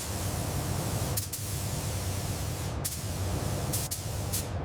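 Continuous hiss over a low rumble, dipping briefly a few times.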